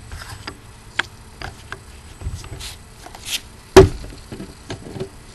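Handling of a FAB Defense grip's storage compartment with a shotgun shell inside: scattered light clicks and scrapes as the screw cap is worked, with one loud sharp knock past the middle.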